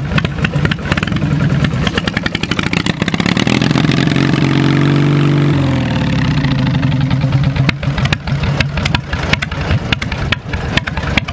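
Twin-cylinder engine of a 1983 Yardman MTD garden tractor running through two open upright chrome exhaust stacks. It is revved up for a couple of seconds around the middle, then dropped back quickly to an uneven, lumpy idle that sounds like it's gonna die.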